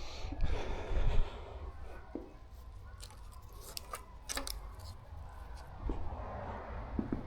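Scattered light clicks and small knocks of metal engine parts and tools being handled, with a cluster of sharp clicks in the middle, over a steady low hum.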